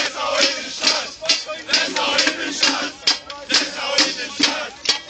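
A crowd of people chanting together in unison over a steady beat of about two hits a second.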